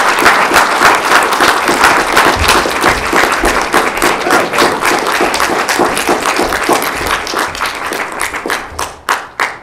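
Small audience applauding: dense clapping that thins and dies away near the end, with a few last separate claps.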